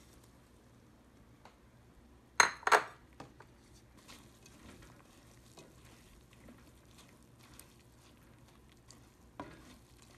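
Broccoli florets tipped from a ceramic bowl into a pot of simmering soup, with two sharp dish knocks close together about two and a half seconds in, the loudest sounds. A wooden spoon then stirs the broccoli in the pot with soft scrapes and light clicks, and one more knock comes near the end.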